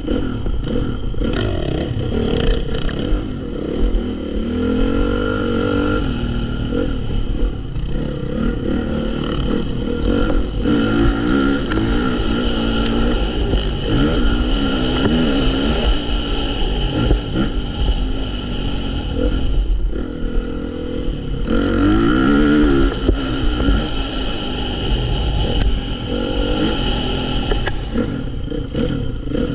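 Dirt bike engine, heard from on board, revving up and down continuously as the bike accelerates out of corners, shifts and backs off, with rattling from the bike over the rough track.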